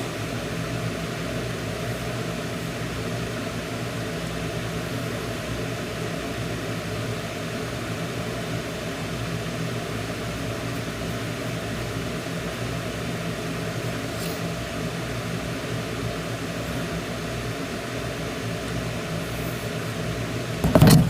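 Steady mechanical hum with a low drone. Near the end there is one short, loud sound.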